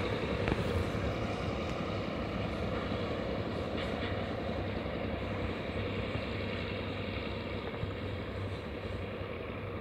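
Diesel-hauled train of oil tank wagons running away on the rails: a steady low rumble of the distant locomotive engine and the wheels, slowly fading.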